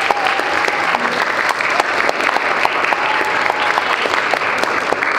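Audience applauding, many hands clapping steadily and densely.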